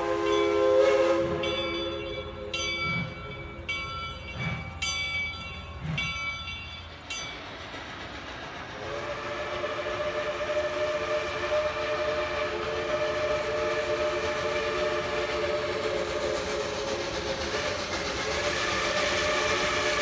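Steam locomotive chime whistle: a chord of several notes cuts off about a second in. Then come several ringing strikes a second or so apart, the locomotive's bell, and from about nine seconds in a second long, steady chime-whistle blast sounds to the end.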